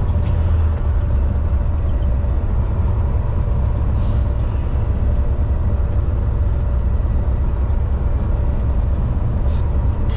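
Semi-truck's diesel engine running under way, heard inside the cab: a steady low hum with road noise.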